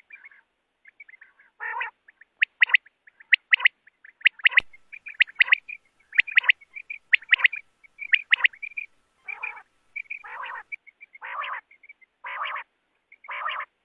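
Quail calling: short, sharp, high notes in quick groups of two or three. A lower, rougher call comes now and then, and about once a second in the last few seconds.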